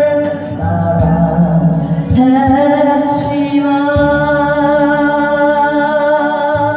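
A solo voice singing a Korean ballad over instrumental accompaniment, holding long notes. A new sustained note starts about two seconds in.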